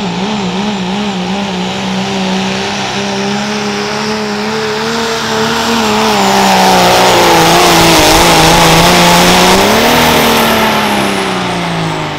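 Turbocharged diesel pickup truck at full throttle pulling a weight-transfer sled, the engine's pitch wavering rapidly at first. It grows louder about halfway through, then the pitch drops near the end as the truck comes off the throttle.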